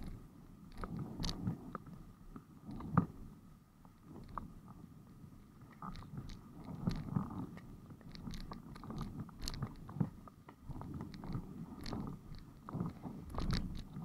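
Muffled, irregular knocking and clicking over a low rumble, heard through an action camera's sealed case: a windsurf board riding over chop on a moderate breeze, the hull slapping the water and the rig and mount knocking. One sharp knock, about three seconds in, is the loudest.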